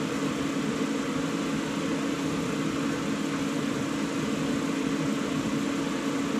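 Dyna-Glo Pro 60K propane torpedo heater's electric motor and fan running unlit, before ignition: a steady hum over an even rush of air.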